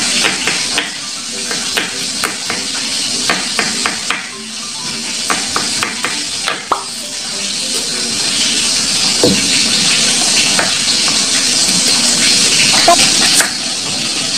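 Fish head sizzling in hot oil as it stir-fries, with irregular knife taps on a wooden chopping board.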